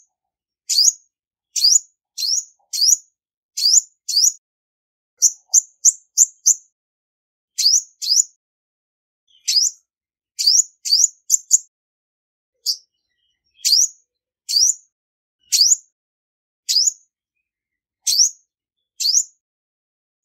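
Female olive-backed sunbird calling: short, high chirps, each with a quick upward sweep, repeated about once or twice a second. Twice the chirps come in quick runs of four or five notes.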